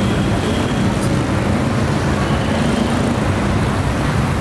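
Road traffic: cars and motorbikes driving past, with a steady low engine hum.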